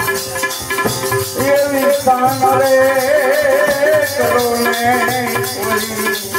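Devotional bhajan: a man's voice singing a wavering melody over held harmonium notes, with a rattling percussion keeping a fast, steady beat. The voice comes in about a second and a half in; before that the harmonium and rattle play alone.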